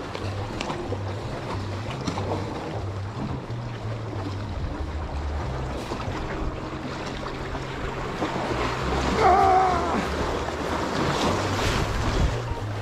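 Sea surf washing and splashing against concrete tetrapod blocks, with wind buffeting the microphone. A short wavering tone sounds briefly about nine seconds in.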